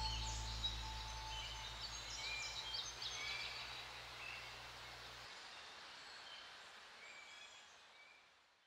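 Small birds chirping in short high calls over the low tail of fading background music, which stops about five seconds in. The bird calls fade out with it.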